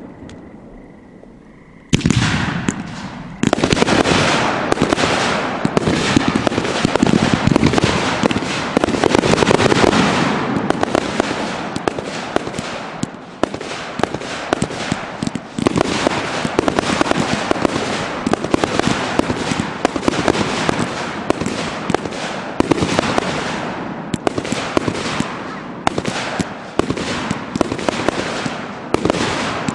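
Multi-shot consumer aerial fireworks cake firing. After about two quiet seconds, a fast, continuous string of launches and bursts follows, several shots a second with no pause.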